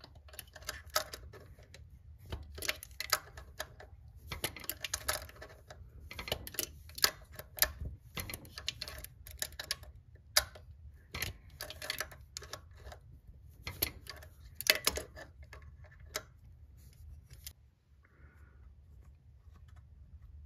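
Irregular metal-on-metal clicks and scrapes of needle-nose pliers gripping and turning the stub of a broken alternator tensioning bolt as it backs out of its thread. The clicks stop about three seconds before the end.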